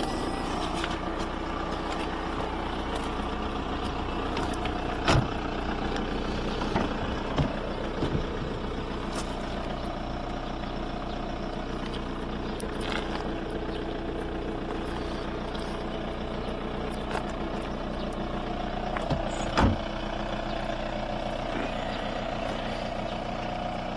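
VW Polo 1.9 SDI's naturally aspirated four-cylinder diesel idling steadily, with a few short sharp knocks on top.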